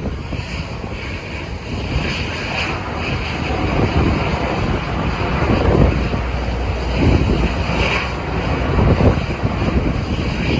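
Strong wind buffeting the microphone: a loud, gusty low rumble that swells and eases every second or two, with a faint steady high whine underneath.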